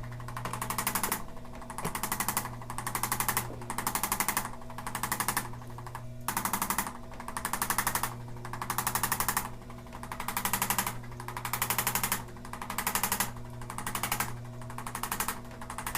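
Electric percussion massager running with a steady hum, its rapid tapping coming in bursts about once a second as it is worked over the low back muscles.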